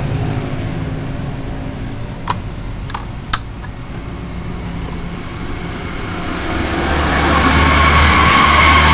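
A motor vehicle running nearby, swelling louder in the last few seconds, with a few sharp clicks about two to three seconds in.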